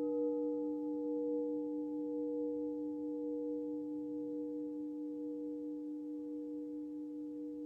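Singing bowls ringing on in several steady pure tones, slowly fading after being struck.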